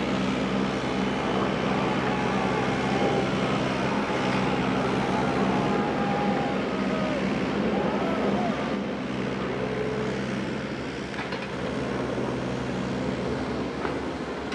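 Caterpillar 302.7D mini excavator's diesel engine running steadily as the machine slews and works its arm; the engine note drops and gets quieter a little under nine seconds in.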